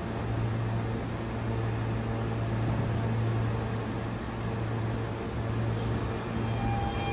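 Steady low hum and rushing noise of a subway train and station. In the last second a train adds several steady ringing tones that grow louder.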